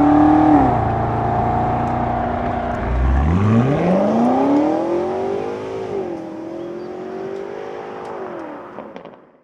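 BMW M5's twin-turbo V8 through a Scorpion GPF-back exhaust, pulling on the road: the note drops back, then climbs steeply in pitch under acceleration, breaks at a gear change and carries on before fading out near the end.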